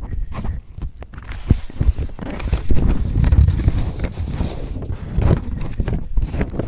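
Sheets of paper rustling and shuffling as a new blank page is laid over written pages, with irregular light knocks of handling.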